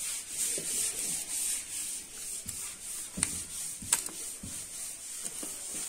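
Torque wrench with an angle gauge being worked on cylinder-head bolts for the 65-degree angle-tightening step: faint rubbing and handling noise, with a few sharp metal clicks and low knocks in the middle.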